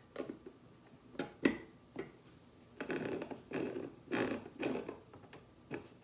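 Plastic lid and bean hopper of an OXO Brew conical burr coffee grinder being fitted and worked by hand, with the grinder not running. A few light clicks come in the first two seconds, then a run of short knocks and scrapes.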